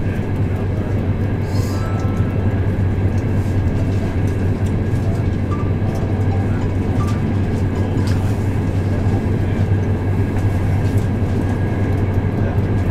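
Passenger train running at speed, heard from inside the carriage: a steady low hum and rumble with no change in level.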